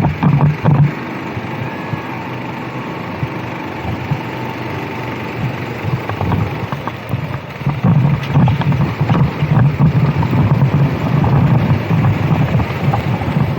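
Racing kart engine running with wind on the microphone; the engine gets louder and busier from about eight seconds in.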